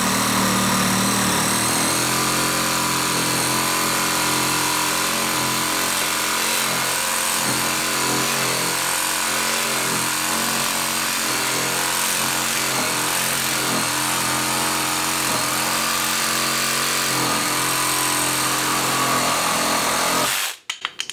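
DeWalt Atomic DCS369 20-volt compact cordless reciprocating saw cutting through a clamped pine board, its motor running steadily under load with the blade rasping through the wood. It stops suddenly near the end as the cut finishes.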